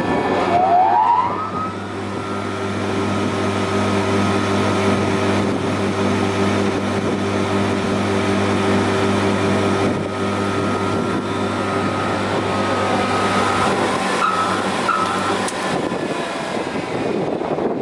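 Spindle moulder's electric motor and spindle winding up to a new speed after a speed change on its switch, heard as a rising whine about a second in. It then runs steadily with a strong hum. The tone stops in the last few seconds as the machine is switched off.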